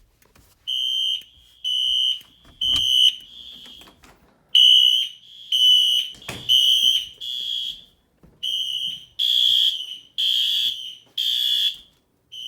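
Fire alarm horns sounding in short blasts of a high horn tone, about one a second, in groups with longer pauses between them. From about halfway through, a second, harsher horn blasts out of step with the first. Faint knocks are heard along with them.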